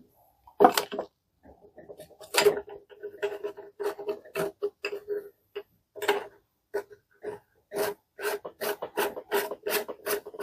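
Plastic oil bowl of an air-line lubricator being screwed back on by hand: short scraping rubs of plastic threads, irregular at first, then coming evenly at about three a second over the last few seconds.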